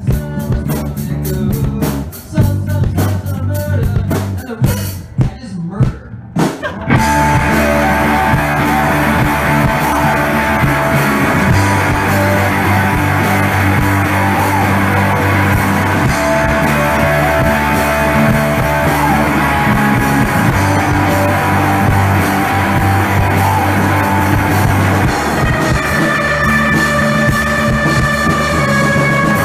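Loud rock band practice: drum kit hits and bass guitar, with sharp separate strikes for the first several seconds. From about seven seconds in it becomes a dense, continuous wash of rock music with held notes.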